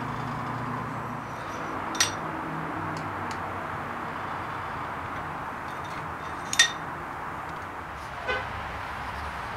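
Small metal parts clinking during top-end assembly of a Harley-Davidson Evolution engine: a sharp clink about two seconds in, a louder one past the middle and a softer knock near the end, over steady background noise.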